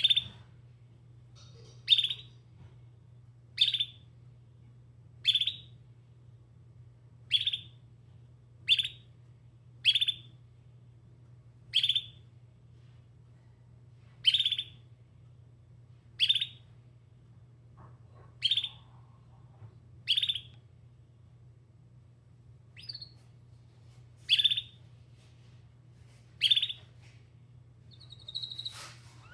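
Domestic canary giving short single chirp calls, one every one and a half to two seconds, about fifteen in all, with a steady low hum underneath.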